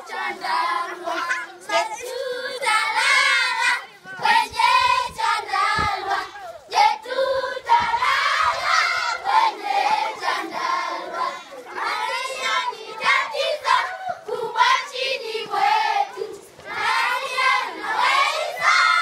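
A group of schoolchildren singing together as they march, many young voices in phrases with short breaks between them.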